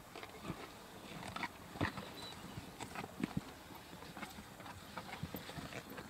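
Spotted hyenas feeding on a giraffe carcass: irregular sharp cracks and crunches as they chew and tear at bone and meat.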